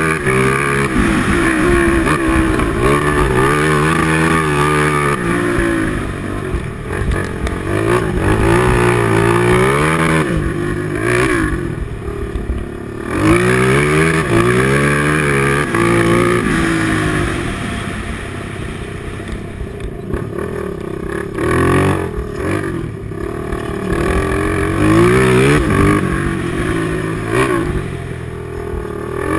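Honda TRX450R quad's single-cylinder four-stroke engine under hard throttle on a dirt track. Its note climbs in steps as it shifts up, then falls away as the throttle is rolled off for the turns, several times over.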